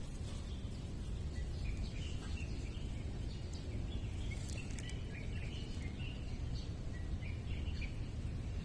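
Short, high chirps scattered irregularly over a steady low rumble, typical of small birds calling.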